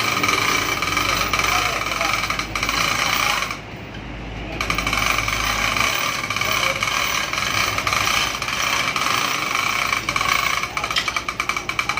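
A power tool running with a steady high-pitched whine. It stops briefly about four seconds in, then starts again and breaks into a rapid hammering near the end.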